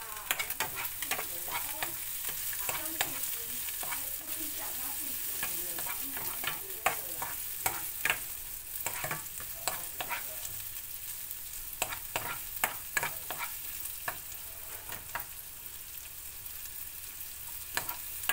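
Chopped onion and pork frying in oil in a nonstick pan, with a steady sizzle and frequent sharp clicks as a cooking spoon stirs and scrapes the pan. The bits of pork fat make the oil pop.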